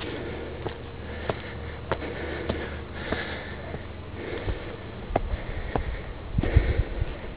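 A person climbing stone steps, breathing hard through the nose, with footsteps on the stone about every 0.6 s. A brief low rumble comes near the end.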